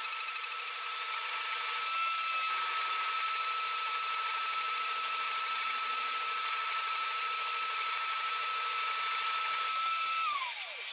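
CNC machine spindle running with a steady high whine over a hiss. Near the end it winds down, its pitch sliding quickly downward.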